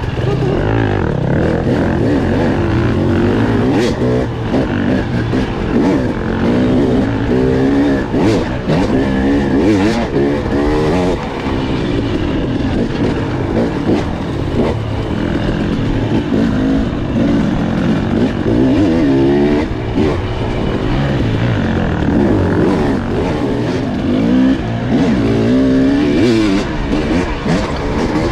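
Motorcycle engine being ridden, its pitch rising and falling over and over as the throttle opens and closes through the gears, with a few sharp knocks along the way.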